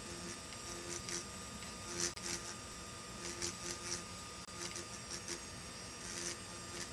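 Hand-held engraving drill running steadily while its burr grinds into an optical crystal block in short repeated touches. Each touch gives a brief high-pitched scratchy grind, about five clusters of them.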